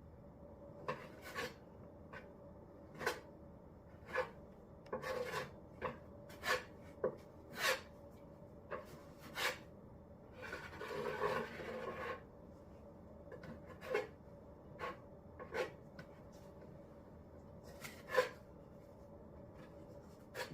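Putty knife spreading and scraping a skim coat of Henry Feather Finish cement over a table surface: short, irregular scraping strokes, with one longer scrape of about two seconds near the middle.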